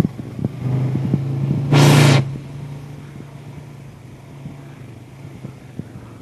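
ATV engine revving up as it pulls away, with a loud rushing burst about two seconds in, then running steadily at lower revs with light knocks and rattles.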